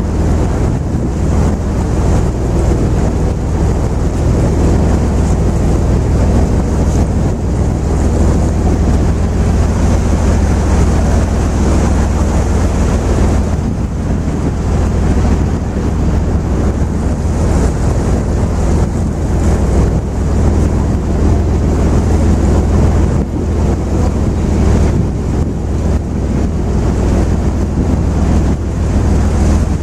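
Steady low rumble and wind buffeting the microphone aboard a river excursion boat under way, with water rushing past.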